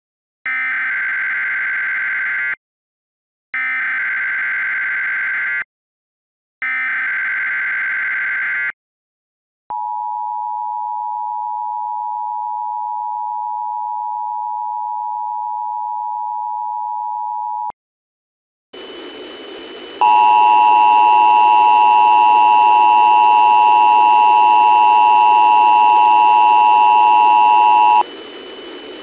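Emergency Alert System SAME header: three bursts of warbling digital data tones, about two seconds each, then the two-tone EAS attention signal held steady for about eight seconds. After a short gap, a hiss with a high steady whine comes in, and a second or so later the two-tone attention signal sounds again, louder, for about eight seconds over the hiss, as in a station relaying the alert.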